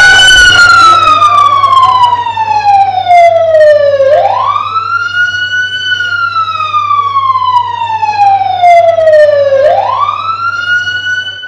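Police siren sound effect, a slow wail that climbs quickly and then falls slowly, repeating about every five and a half seconds, with a low steady hum under it. It cues the entrance of a policeman.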